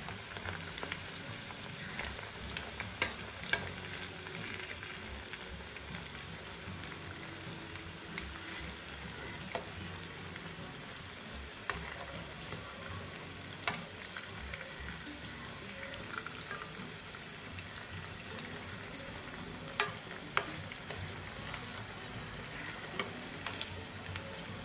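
Shredded-cabbage pakoda fritters deep-frying in hot oil in a steel kadai, a steady sizzle. Now and then there is a sharp clink as a metal spoon knocks the pan while turning the fritters.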